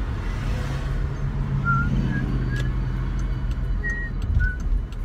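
Road and engine noise inside a moving car: a steady low rumble with a steady engine tone, and scattered short high notes over it.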